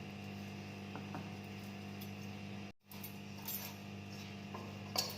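Wheat-flour dough being kneaded by hand in a bowl: a few faint light clicks and clinks over a steady low electrical hum, with a brief dropout a little before halfway.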